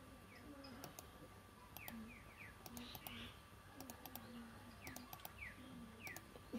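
Faint, scattered clicks of a computer mouse, with short falling chirps of a bird in the background.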